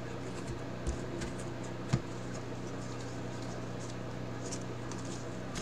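Baseball trading cards handled and flipped through by hand, giving a few soft clicks and taps, the sharpest about two seconds in. A steady low hum runs underneath.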